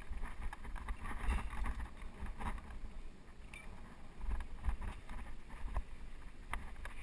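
Mountain bike rolling over rocky dirt singletrack: tyre noise with scattered sharp knocks and rattles from the bike over the rocks, under a low wind rumble on the camera microphone.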